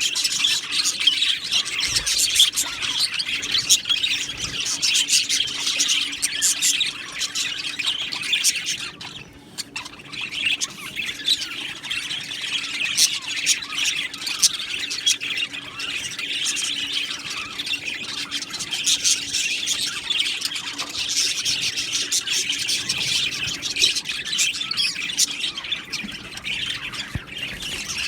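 A colony of budgerigars chattering, chirping and squawking all at once, with a brief lull about a third of the way in. A faint steady hum lies underneath.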